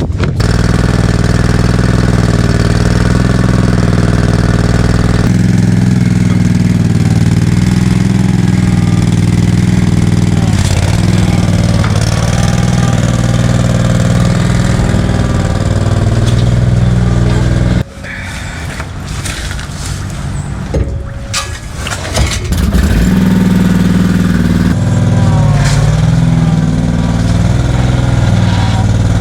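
Small gas engine of a motorized concrete power buggy running steadily. It drops away for a few seconds about two-thirds of the way through, with some knocks, then runs loud again.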